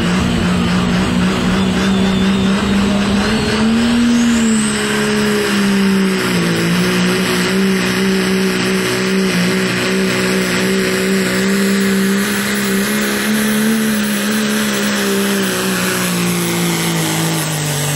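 Diesel Dodge Ram pickup engine at full throttle, pulling a weight-transfer sled. It holds high, steady revs under heavy load, with a brief surge about four seconds in and a dip a couple of seconds later. The revs begin to drop near the end.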